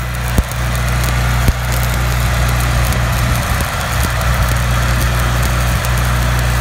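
Stick welding arc crackling and sizzling steadily as a bead is run around a steel spindle on a wagon axle, with a steady low hum underneath.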